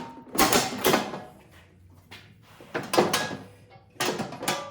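Sheet-metal belly pan of a snowblower being handled after it is slid out: four sharp metallic clatters and scrapes with quiet gaps between.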